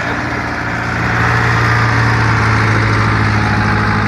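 Off-road vehicle's engine running loudly at a steady pitch.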